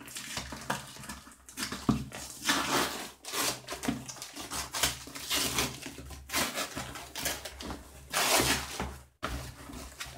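Cardboard shipping box being torn open by hand: irregular bursts of ripping and rustling cardboard and tape.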